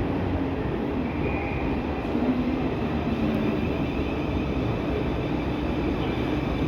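Two coupled Class 450 Desiro electric multiple units running into a station platform: a steady rumble with a faint, even whine over it.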